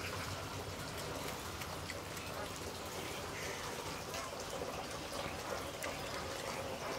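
Food sizzling in a cooking pan: a steady hiss with small scattered crackles.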